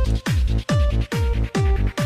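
Background electronic dance music with a steady kick drum at about two beats a second under synth notes.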